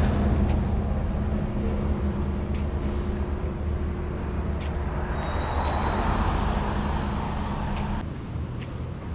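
A heavy vehicle's engine running close by, with a hiss and brief high squealing tones in the middle. The sound drops away suddenly about eight seconds in.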